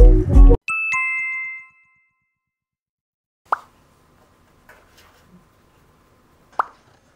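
Background music cuts off and a two-note chime sounds, a higher note then a lower one, ringing out for about a second. Then faint room tone with two short pops about three seconds apart.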